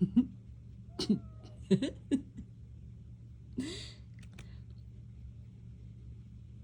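Cats giving several short meows, each a brief call that bends in pitch, spread over the first four seconds.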